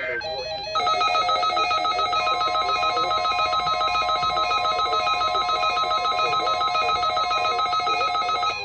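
NOAA Weather Radio emergency alert tones for a weekly test that is being relayed again and again because a stuck broadcast system keeps resending it. About a second in, a loud electronic alert tone starts, trilling fast at about seven pulses a second. A second steady high tone joins about two seconds in, and both cut off abruptly just before the end.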